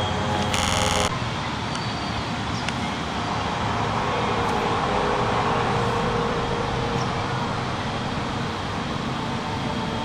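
Fabricated 'strange sky sound' hoax audio: a steady rumbling drone over outdoor background noise, with a short buzzy blare about half a second in and a slow swell in the middle.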